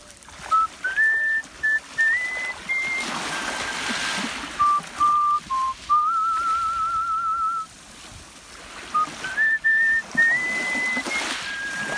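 Artistic mouth whistling of a melody: clear single notes stepping up and down, with a long held note wavering in a wide vibrato about six seconds in. After a short pause near eight seconds, the opening phrase starts again.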